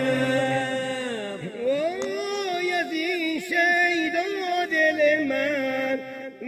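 A singer's voice holding long notes of a slow Persian song, gliding in pitch and breaking into quick wavering ornaments.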